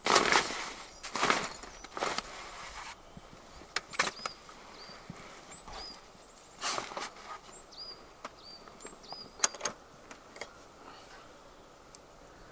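Heavy tent fabric rustling and scraping in bursts as the Alu-Cab hard-shell roof top tent is packed in and its lid pushed shut, with scattered knocks and clicks, the sharpest about nine and a half seconds in. Small birds chirp repeatedly in the background.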